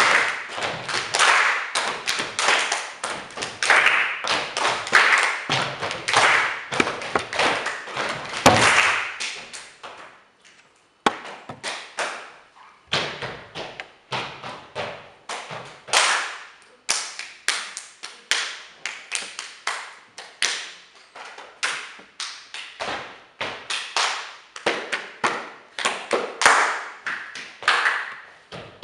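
Group body percussion: many hands clapping and striking bodies, with some duller thuds, in a rhythm built on the Fibonacci sequence. The strokes come thick and overlapping at first, stop briefly about ten seconds in, then resume sparser and evenly spaced.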